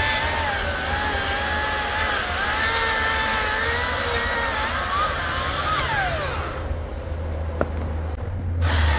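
Battery chainsaw cutting through a thick hardwood log, its motor whine wavering under load, then winding down in a falling glide about six seconds in. A steady low hum runs underneath, with one sharp click near the end.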